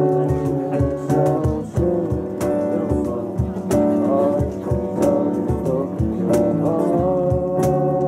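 A small acoustic band playing: two acoustic guitars strumming, electric bass, and a cajón keeping a steady beat, with a male lead vocal singing the melody over it.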